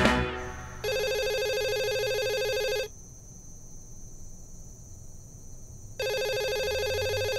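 A telephone ringing: one steady ring of about two seconds, then a second ring starting about three seconds later. Guitar rock music dies away just before the first ring.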